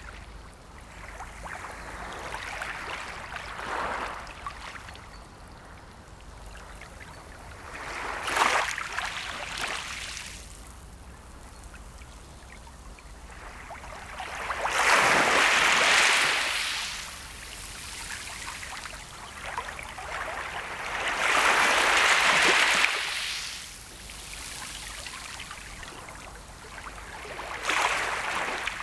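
Sea waves breaking and washing in, about five in turn, each a rush of water that swells and fades; the two in the middle are the loudest.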